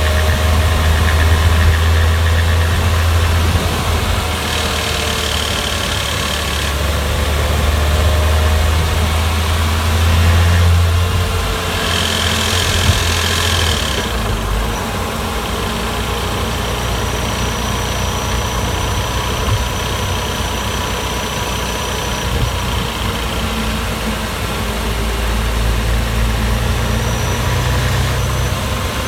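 Porsche Boxster 986 S 3.2 flat-six engine running steadily, its low hum dropping and changing pitch about halfway through, with a brief hiss at the same time.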